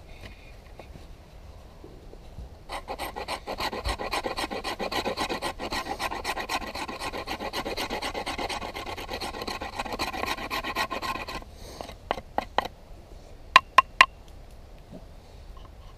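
A steel knife blade rasping in quick, short strokes for several seconds, with a metallic ring running through them. It is followed by a few scattered strokes and then three sharp, ringing metallic clicks.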